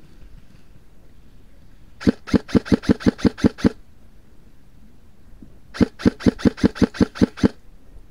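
Airsoft rifle firing two quick strings of about ten shots each, roughly six shots a second, one about two seconds in and the other about six seconds in.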